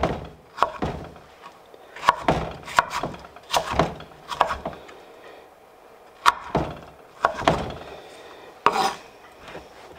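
Chef's knife rough-chopping peeled tomatoes on a wooden cutting board: irregular knocks of the blade on the board, some in quick pairs, with a short pause about halfway through.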